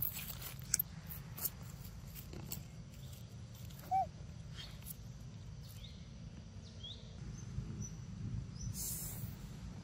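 Scattered rustles and crackles of dry leaf litter over a low steady rumble, with one short squeak about four seconds in and a few faint high bird chirps later on.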